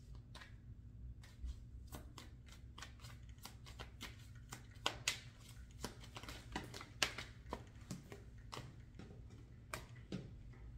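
Tarot cards being shuffled and handled: a quick, uneven run of small snaps and rustles, with a few sharper snaps about halfway through.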